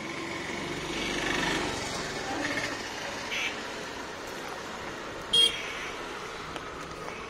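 Street traffic noise from passing vehicles, with a short high-pitched toot like a vehicle horn about five seconds in.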